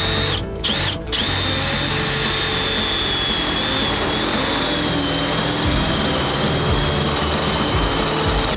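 Cordless drill running with a steady high whine. It stops twice briefly about half a second and a second in, then runs continuously, its pitch sagging slightly partway through as it works under load.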